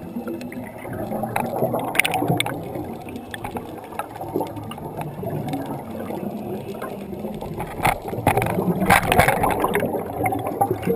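Scuba regulator exhaust bubbles gurgling underwater, a continuous bubbling rush, with a few sharp clicks or knocks about two seconds in and again near the end.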